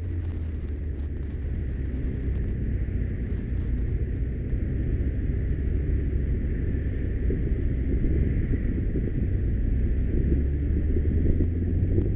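Motorcycle engine running steadily at low speed, heard from on the bike, with wind rumble on the microphone.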